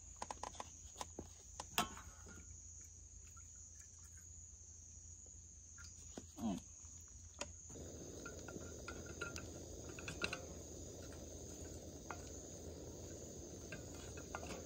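Crickets chirring steadily in one high, even band, with scattered light clicks and taps from the cooking pan and utensils. About eight seconds in, a soft low rushing noise sets in underneath and stays.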